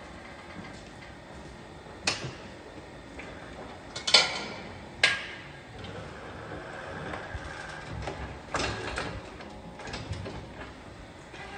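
A few sharp metallic knocks and clanks from a cattle hoof-trimming crate. The two loudest come about four and five seconds in, with a lighter one about two seconds in.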